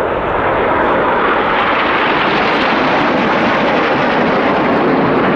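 BAE Hawk T1 jet trainers flying past in a crossing pass of two formations. The jet noise is loud and steady.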